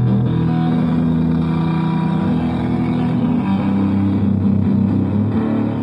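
Electric guitar, a Fender Telecaster Deluxe, through a Green Russian Big Muff fuzz pedal into a Twin Reverb-style amp: thick, distorted held notes that change pitch a few times.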